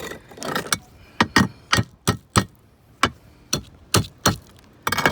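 Roof tile being broken out with a hammer: about ten sharp, irregular knocks and cracks, after a short scraping rattle at the start. The tile is being broken up because its back lip catches on the foam adhesive beneath it.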